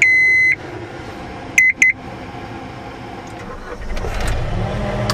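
A vehicle's warning buzzer beeps once for about half a second, then twice quickly about a second and a half later, over an idling engine. Near the end the engine speeds up and runs louder.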